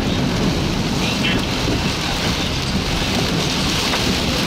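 Heavy rain beating on a car's roof and windshield, heard from inside the cabin: a steady, dense rush, strongest in the low end.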